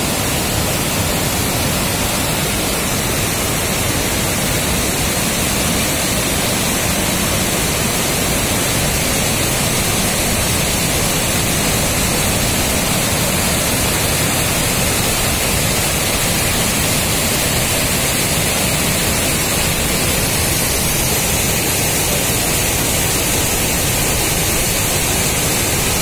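River waterfall pouring over rock ledges in a churning white-water cascade: a loud, steady rush of falling water.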